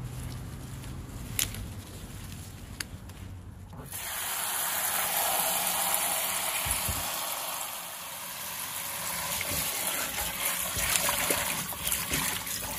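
Water from a tap gushing steadily into a bowl of freshly picked common blue violet leaves, starting abruptly about four seconds in. Near the end a hand swishes and rubs the leaves in the water to wash them. Before the water starts there are only faint outdoor sounds and two light clicks.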